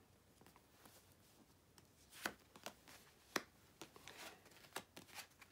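Tarot cards being drawn from a deck fanned out on a velvet cloth and laid down: faint sliding and a few sharp card clicks, the two loudest a little over two and three seconds in.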